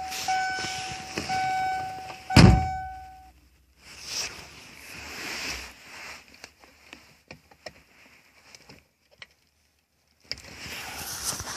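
2001 Kia Sportage door-chime warning tone, from the ETWIS door-lock and chime module, beeping steadily and stopping about three seconds in. A loud thunk comes about two and a half seconds in, followed by soft handling rustles and small clicks.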